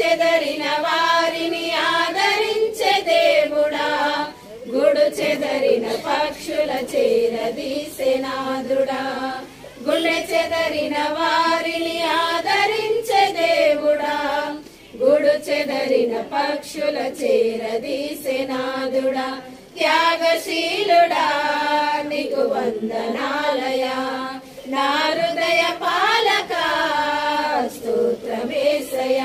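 A small group of women singing a Telugu Christian hymn together from hymn books, in sung phrases of a few seconds with brief pauses between them.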